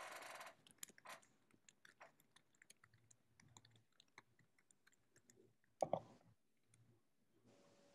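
Faint, irregular clicking of a computer keyboard and mouse, with a short louder sound about six seconds in.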